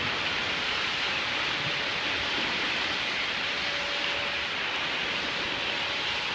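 Steady rushing, splashing hiss of water in an indoor swimming pool as a swimmer moves through it.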